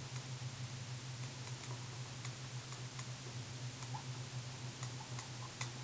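Faint, scattered light clicks and taps of a pen writing on a tablet screen, over a steady low electrical hum.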